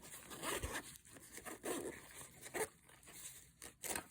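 Zipper of a nylon EDC pouch being pulled open in a few short rasps, with the fabric rustling as it is handled.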